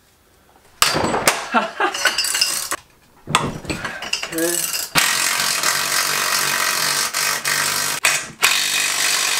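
Cordless drill running against a car's metal steering rack, starting with clicks and clatter about a second in and then running steadily, with a short stop near the end before it starts again.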